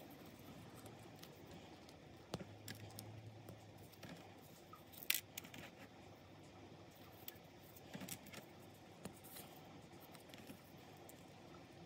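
Faint clicks and small plastic handling sounds of LEGO minifigure parts being fitted together, a cape, torso and hairpiece pressed into place, with a few sharper clicks spaced a second or more apart, the clearest about five seconds in.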